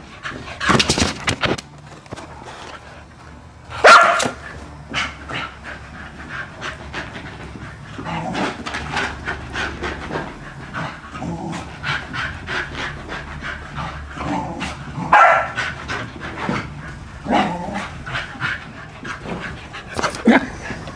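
Shetland sheepdog barking in loud, separate bursts at its own reflection in a mirror, panting hard in between.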